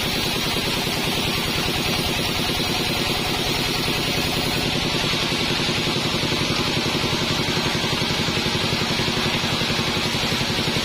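48-inch band sawmill running: a steady machine drone with a fast, even pulse and a hiss over the top.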